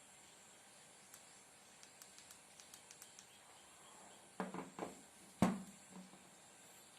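Faint light clicks of handling. Then, near the end, a few short voice-like sounds, which are the repaired earphone's small speaker playing audio during its test.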